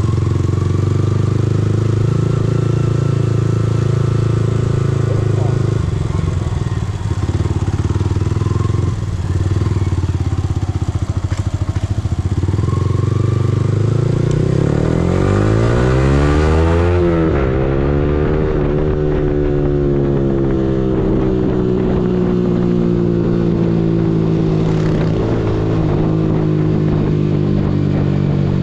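Yamaha R15M's 155 cc single-cylinder engine running at low revs, then pulling away with the revs rising, a gear change dropping the pitch sharply about two-thirds of the way through, and the engine climbing again before settling into a steady cruise.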